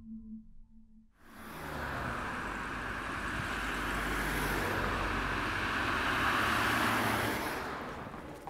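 A motor vehicle going by: a steady rush of engine and road noise that swells in about a second in and fades away near the end.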